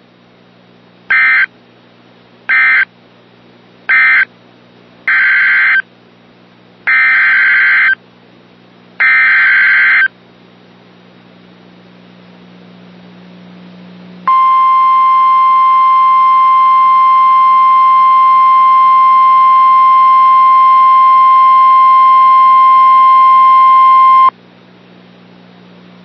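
Emergency Alert System signalling from a National Weather Service broadcast. First come three short bursts of SAME digital data, the end-of-message code closing the previous warning. Then come three longer SAME header bursts announcing the next warning, and then a loud, steady single-pitch alert tone near 1050 Hz, held for about ten seconds before it cuts off sharply.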